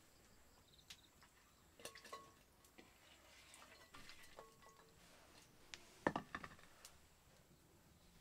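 Scattered light knocks and clinks of earthenware, some ringing briefly, as small raw fish are tipped from a shallow dish into a clay bowl and handled there. A louder cluster of knocks comes about six seconds in.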